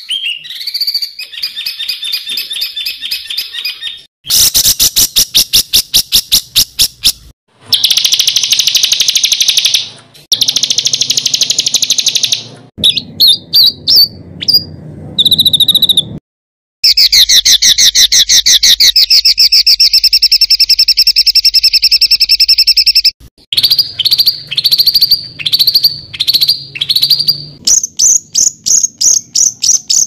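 Songbird recordings spliced together with abrupt cuts: harsh, rapid rolling trills and rattles, then a run of falling whistled notes about three-quarters of the way in, and fast high chips near the end.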